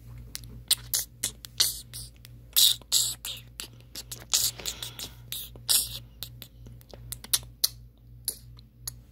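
Handling noise: irregular sharp clicks and scratchy rubs, a few a second, from fingers moving on the recording phone, over a steady low hum.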